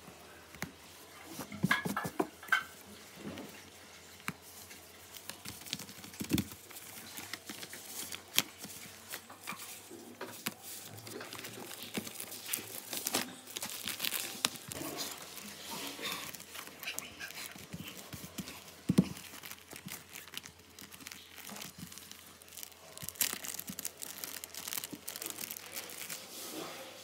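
A folded lined paper note and thin clear plastic packaging being handled and unwrapped: rustling and crinkling with scattered sharp crackles, busier from about ten seconds in.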